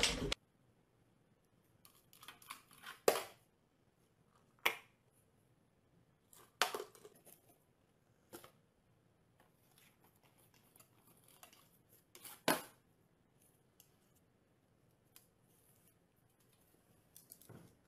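A few sharp taps and clicks, spaced one to four seconds apart, against near silence; the loudest come about three, five, seven and twelve seconds in.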